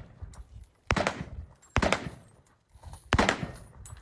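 Gunshots on an outdoor range: three single shots, the first two about a second apart and the third over a second later, each trailing off in an echo.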